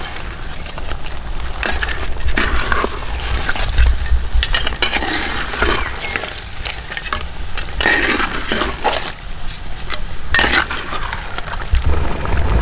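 Whole crabs being stirred into thick masala gravy in a clay pot with a flat spatula: wet scraping and shells knocking, in several short strokes a couple of seconds apart.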